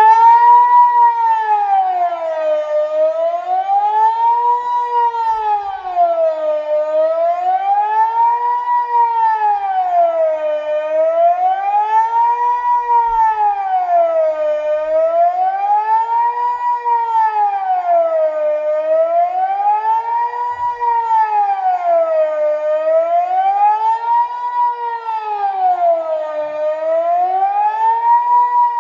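Kockum Sonics DELTA-4 electronic civil-defence siren sounding the Swiss general alarm: a loud wailing tone that rises and falls smoothly, about once every four seconds. It comes on suddenly at the start.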